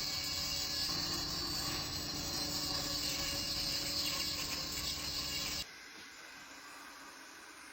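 Steady high-pitched hiss with a faint low hum under it, cutting off abruptly about five and a half seconds in; a quieter hiss follows.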